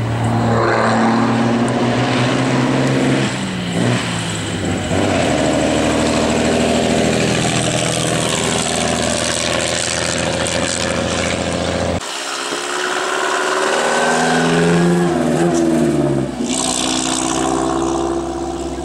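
Vintage racing cars driving past one after another under power, their engines running hard, with the pitch falling as each car goes by. The sound changes abruptly about twelve seconds in, and another car follows.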